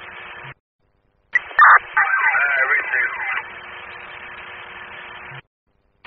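Two-way radio dispatch audio: the hiss of an open transmission, cut off twice by the squelch closing for under a second. A short garbled, warbling burst comes in after the first gap, with no clear words.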